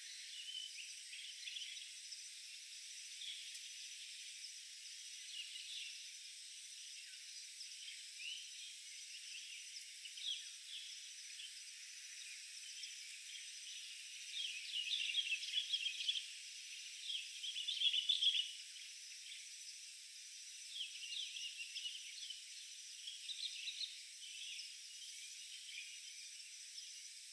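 Forest ambience: a steady high insect drone with scattered chirping calls. The chirps come loudest in two bursts of rapid chirping about halfway through.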